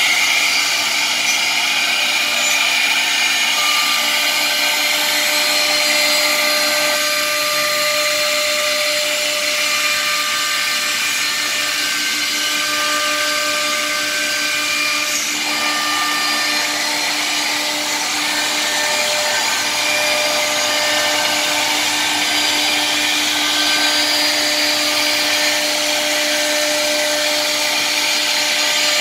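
Three-head CNC woodworking router (M1325K3) machining a laminated wood panel: a steady spindle whine over the rush of the dust extraction. The tone shifts slightly about a quarter of the way in and again about halfway.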